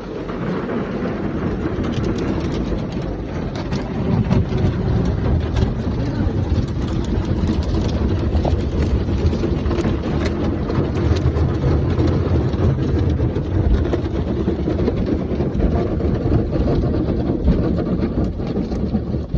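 Automatic car wash in operation: a steady, loud noise of wash machinery and water spraying onto the car, with a constant crackle of spray and getting louder about four seconds in.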